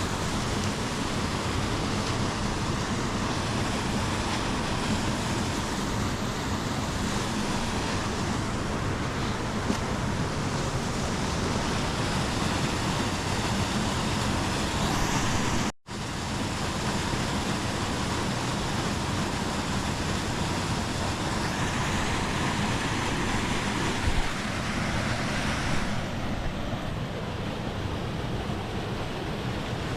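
Waterfall rushing steadily, a dense even wash of falling water; it cuts out for an instant about halfway through.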